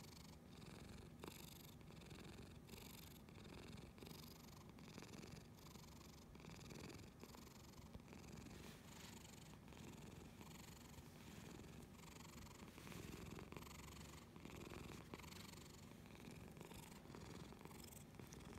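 Domestic cat purring steadily, the purr pulsing about twice a second.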